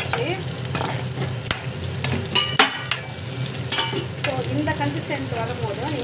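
Cashews and raisins sizzling as they fry in a shallow metal pan, stirred briskly with a perforated metal spatula that scrapes and clatters against the pan, loudest about two and a half seconds in.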